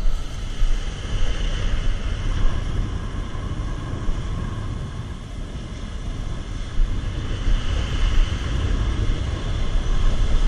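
Rough ocean surf breaking and washing in foamy whitewater, with wind buffeting the microphone: a loud, steady rumble that swells and eases.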